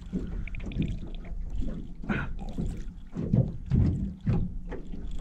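A blue catfish thrashing and splashing at the water's surface beside the boat as it is grabbed by hand: a run of irregular splashes.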